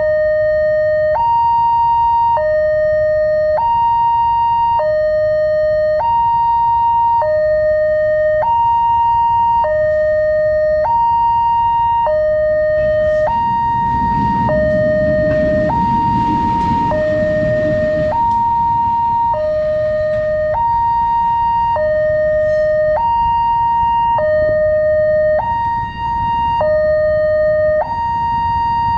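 Railway level-crossing alarm sounding a melodious two-tone pattern: a lower and a higher tone alternate a little more than once a second without a break. About halfway through, a passing locomotive adds a low rumble under the alarm for several seconds.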